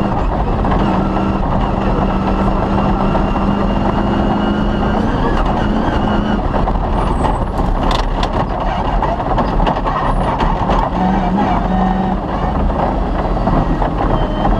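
Off-road rally car driving hard on a gravel special stage: the engine runs at a steady pitch for about five seconds, then changes, over constant loud rattle and road noise, with a few sharp knocks about seven to eight seconds in.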